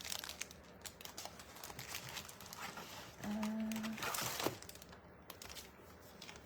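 Paper and packaging crinkling and rustling as stationery items are handled, with many small crackles and a louder crinkle about four seconds in. A short steady tone sounds briefly just before it.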